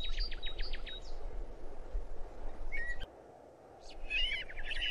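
Birds chirping: a rapid trill at the start, a short chirp just before three seconds in, and another trill from about four seconds, over a steady low ambient hiss that cuts out briefly just after three seconds.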